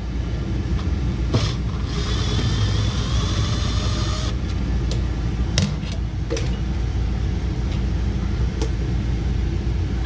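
Cordless power driver's motor whirring for about two seconds, a couple of seconds in, as it backs out the mounting screw of a boiler's hot surface igniter. A steady low rumble runs underneath, with a few light clicks and knocks of handling.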